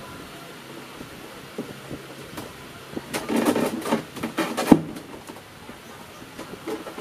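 Plastic body panels and seat hardware of a Honda Airblade scooter being pulled and worked by hand while the seat is taken off: a stretch of rattling and clattering about three seconds in, ending in one sharp knock, then a few light clicks.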